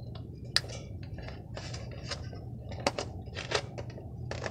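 Hands handling a radio-controlled car's plastic chassis and parts: scattered clicks and taps, the sharpest about half a second in and twice around three seconds in, over a steady low hum.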